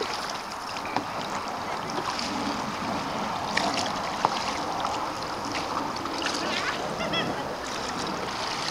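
Canoe paddles dipping and splashing in calm river water, a steady wash of moving water with small scattered splashes and knocks.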